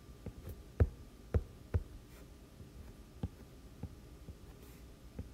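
A stylus tip tapping and clicking on a tablet's glass screen during sketching: about seven short, sharp taps at irregular intervals, the loudest about a second in.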